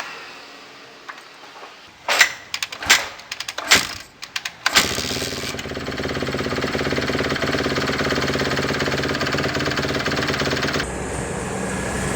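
A few sharp mechanical clanks, then a Kawasaki KX 250 fuel-injected four-stroke dirt-bike engine catches about halfway through and runs steadily, its note shifting slightly near the end.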